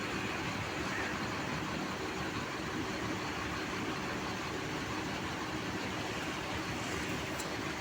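A bus's diesel engine idling with a steady drone.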